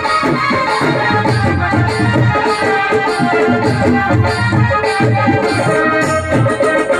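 Live Hindu devotional bhajan music in an instrumental passage: a hand drum keeps a steady beat under held instrument notes, with a shaken rattle-like jingle on the beat.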